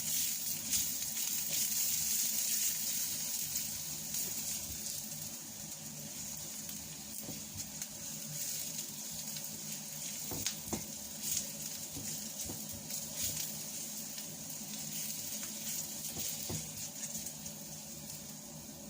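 Chopped shallots and garlic frying in hot oil in a pan, a steady sizzle that slowly gets quieter, with a few light knocks scattered through it.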